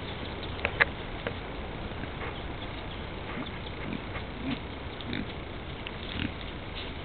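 Goats sneezing: two sharp, loud sneezes close together about a second in and a smaller one just after, then a few soft, low snorts spaced out over the following seconds.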